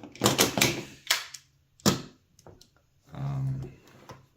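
Plastic magnetic building tiles clacking as they snap together edge to edge: a quick run of sharp clacks in the first couple of seconds, then a few fainter clicks.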